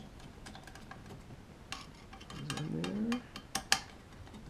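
Scattered light metallic clicks and taps of hand work on a Kaba Simplex 1000 push-button lock's mounting screws and hardware, the loudest click about three-quarters of the way through. A short rising hum sounds in the middle.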